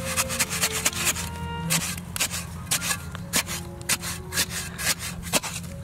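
Small metal spade scraping and chopping into wet, muddy soil in quick, irregular strokes, several a second.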